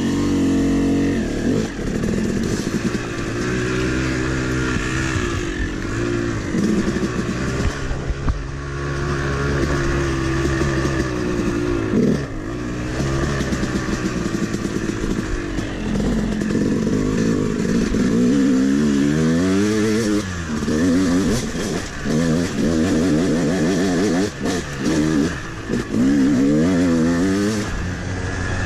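Yamaha YZ250 two-stroke dirt bike engine being ridden off-road, revving up and down with the throttle. Its pitch swings back and forth often, more quickly and widely in the second half.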